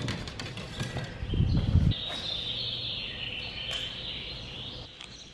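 Flip-flop footsteps on a marina dock for the first couple of seconds, with a brief low rumble partway through. After that, birds chirping in a high, wavering chorus.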